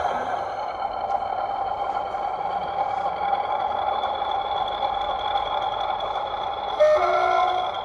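Class 40 diesel-electric locomotive sound from a model-railway sound decoder: the engine running steadily with a high whine over it. Near the end the two-tone horn sounds briefly, stepping from one note to the other.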